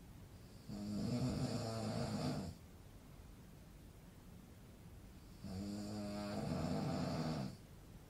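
A man snoring: two long snores, each about two seconds, the second starting about five seconds after the first.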